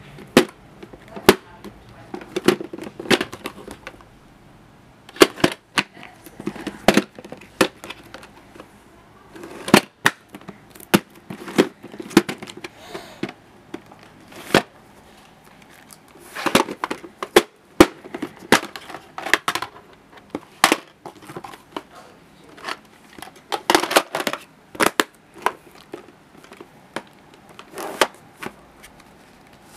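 Plastic video cases being handled: irregular sharp clicks and clacks, a dozen or more loud ones, as the cases are picked up, knocked together and put down.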